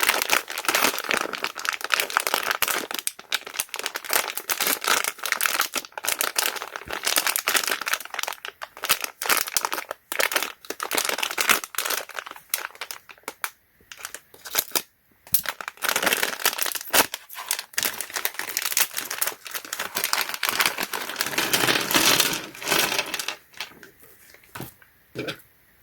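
Plastic packaging crinkling and rustling as it is handled, with many small sharp clicks mixed in; it dies away near the end.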